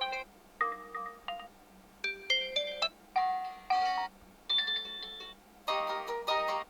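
Realme C53 smartphone playing its default ringtones and tones: a string of short electronic melodic chimes, each under a second long, with brief pauses between them.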